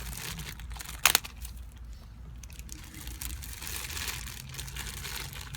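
Light crinkling of small plastic parts and packaging as new valve stem seals are handled, with one sharp click about a second in.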